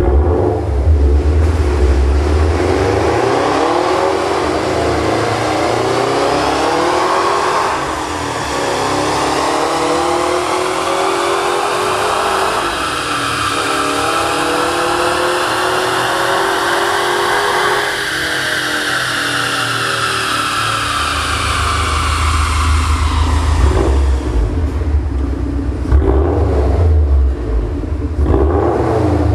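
Subaru WRX STI's turbocharged flat-four revving through an HG Motorsport Ego-X aftermarket valve exhaust. It rises and falls a few times, then makes one long climb in revs that is held at the top and let back down. Several short, sharp revs come near the end.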